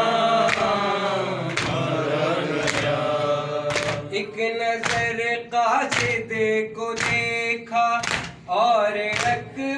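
Men chanting a Shia noha (lament): a group of male voices sing in chorus for the first few seconds, then a single lead voice carries on alone. Through it, hands slap on chests in matam about once a second.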